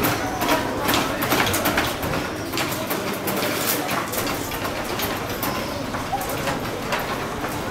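Caged white doves cooing, over a run of rattling clicks and knocks from a wire cage cart being pushed across paving stones.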